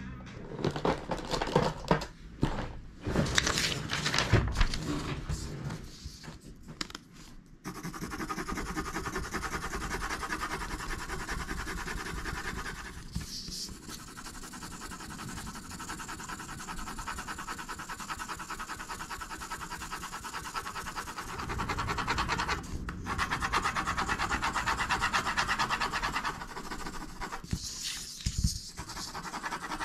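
Pencil lead scratching back and forth on paper in quick hatching strokes, shading a patch solid with graphite, with short pauses about two thirds of the way through and near the end. It is preceded by a few seconds of louder, irregular sounds.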